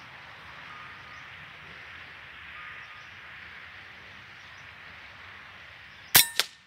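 A single sharp airgun shot about six seconds in, after a few seconds of quiet outdoor background hiss.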